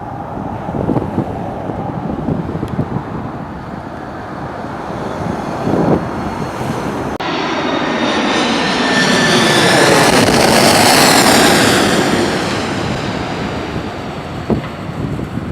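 Wind buffeting the microphone, then a jet airliner passing close by: its engine noise swells with a sweeping, phasing whine, is loudest about ten seconds in, and fades away.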